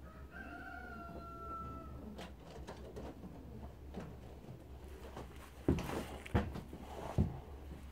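Sounds of a racing pigeon being handled: faint rustles and clicks, then three sharp thumps about half a second to a second apart as its wing is drawn out and spread. Near the start a single drawn-out, slightly falling call is heard, the kind of call that comes from pigeons in the loft.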